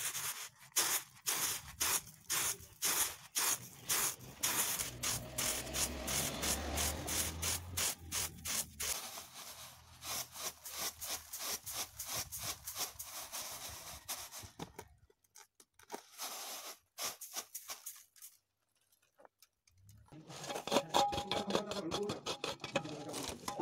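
Paddy rice grains rustling on a flat bamboo winnowing tray, worked in quick rhythmic strokes about three a second. The strokes stop about fifteen seconds in; near the end comes a denser rustle of paddy being poured between a bamboo basket and the tray.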